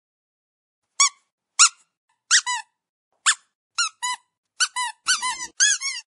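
Squeaky dog toy squeezed repeatedly: a string of short, high squeaks starting about a second in, many in pairs of a sharp squeak and a longer, lower falling one, coming quicker toward the end.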